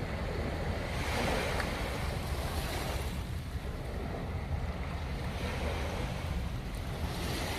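Sea waves washing onto the beach in repeated surges every couple of seconds, with wind rumbling on the microphone.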